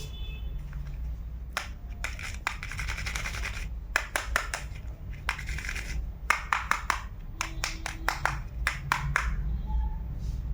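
Small plastic toy-kitchen pieces being handled: a stretch of scraping, then quick runs of sharp clicks and taps, over a low steady hum.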